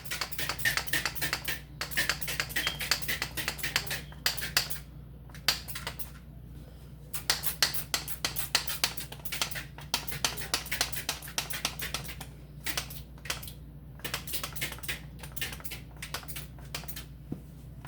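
A plastic trigger spray bottle being squeezed rapidly over and over, in quick runs of clicks with short pauses between. The sprayer is not spraying properly.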